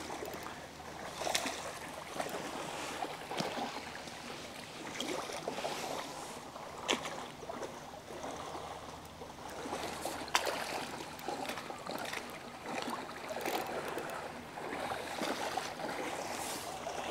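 A hooked bream splashing at the water's surface as it is played in, with steady water sloshing and a few sharper splashes scattered through. Near the end it is drawn into a landing net.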